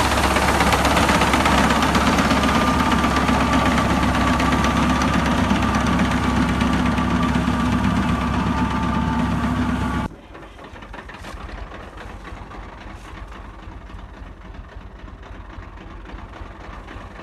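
Tractor engine running steadily as its mounted reaper cuts through standing wheat. About ten seconds in, the sound drops off suddenly to a much quieter, faint background.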